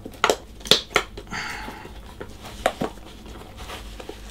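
Hands working a rubber RC tyre onto a chrome-plated wheel: a few light clicks and taps, with a short rubbing scrape about a second and a half in and two more clicks near the end.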